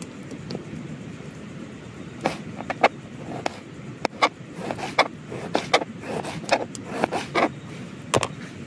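Kitchen knife slicing a tomato on a plastic cutting board, the blade tapping the board in quick, irregular strokes from about two seconds in.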